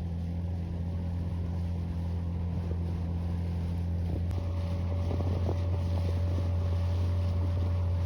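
A boat's engine running steadily with a low drone, with wind on the microphone.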